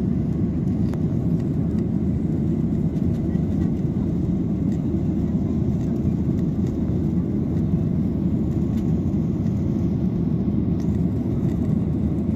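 Steady low rumble of a jet airliner in flight, heard inside the passenger cabin: engine and airflow noise at an even level, with a few faint ticks.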